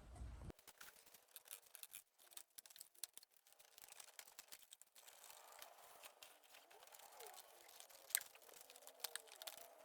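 Near silence: faint scattered clicks and light rustling, with one sharper click about eight seconds in.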